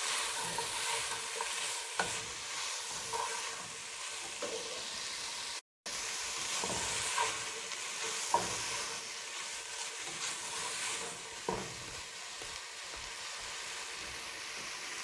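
Chicken strips with sliced cabbage, carrot and capsicum sizzling in a pot while a spatula stirs and tosses them, with a few sharp knocks of the spatula against the pot. The sound cuts out for a moment about six seconds in.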